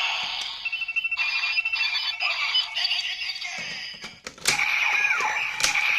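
Kamen Rider Ridewatch toy playing its electronic sound effects and jingle through a small built-in speaker, with beeping tones at first. About four and a half seconds in, a steady high tone with falling chirps takes over.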